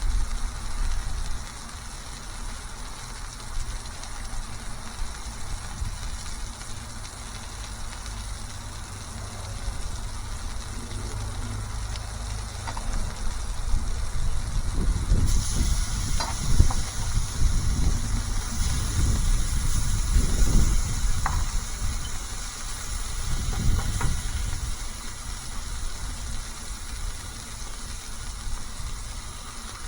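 Food sizzling on a flat-top griddle, with a few short clicks and scrapes. The sizzle grows louder and brighter about halfway through, over a steady low rumble.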